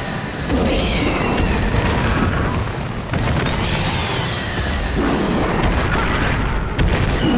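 Giant-monster fight sound effects: kaiju roars rising and falling in pitch over a heavy, rumbling crash of impacts and falling debris.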